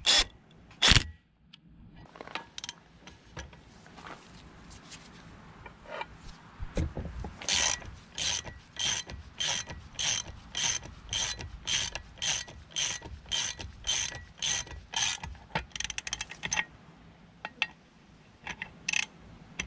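A cordless impact wrench gives a brief burst just after the start, snugging on a Mercruiser sterndrive propeller nut. Then a hand socket ratchet clicks evenly, about twice a second for several seconds, with a few more clicks near the end, as the propeller nut is hand-tightened.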